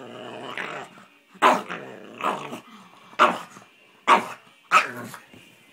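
Pug growling for about a second, then barking five times in quick succession, each bark a second or less apart.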